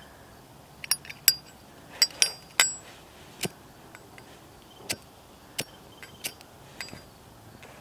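Metallic clicks and clinks from a Zippo lighter and the metal case of a Zippo hand warmer being handled. About a dozen separate sharp clicks, some with a short bright ring, the busiest cluster around two seconds in.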